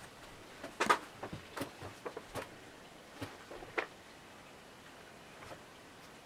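A handful of light knocks and clicks, the loudest about a second in, the last near the four-second mark, over faint room tone.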